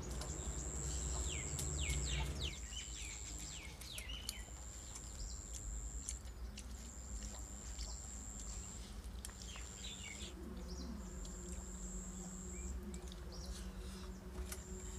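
Outdoor ambience: a high, steady insect buzz in repeated stretches of about a second, with short gaps between them, and birds chirping in quick falling calls, busiest in the first few seconds. A low rumble sits under the first couple of seconds.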